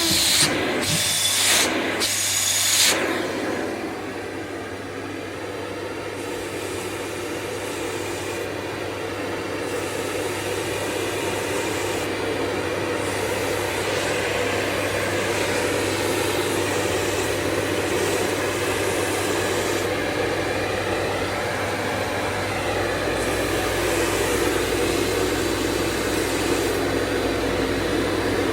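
AmazonBasics bagless canister vacuum cleaner running, its suction drawing over curtain fabric. The sound surges and drops a few times in the first three seconds, then settles into a steady whooshing run with a low hum.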